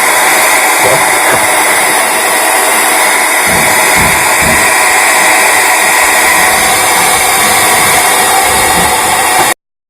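Nova NHP 8105 1200 W hair dryer running on its hot setting: a steady blowing rush with a faint motor whine, cutting off suddenly just before the end.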